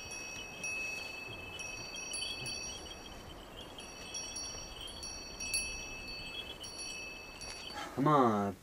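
Small harness bells on a walking horse, ringing in several clear pitches that are struck again and again and ring on. A man's voice comes in briefly near the end.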